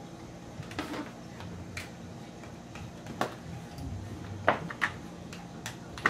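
A few scattered light clicks and taps from a drill and its bits being handled as the drill bit is taken out of the drill, over a faint steady hum.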